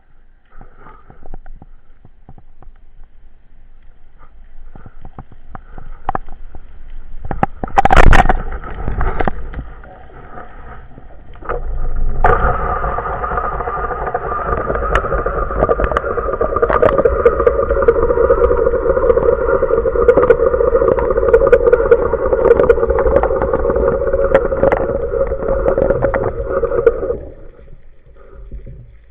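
A motor runs steadily for about fifteen seconds, starting and stopping abruptly, after scattered knocks and one loud knock about eight seconds in.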